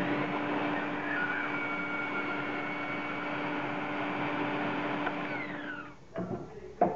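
Mafell Z5EC portable bandsaw's 2250 W motor running steadily with a whine, its pitch falling as it winds down near the end. Two sharp knocks follow, the second the loudest.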